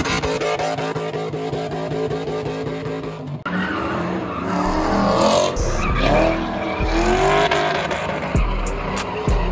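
A car engine held at steady high revs through a burnout. It breaks off suddenly and gives way to a Ford Mustang drifting, its engine revving up and down with tyres squealing.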